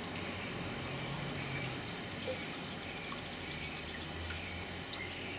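Outdoor ambience: a steady hiss with a faint low hum under it, and small birds chirping now and then.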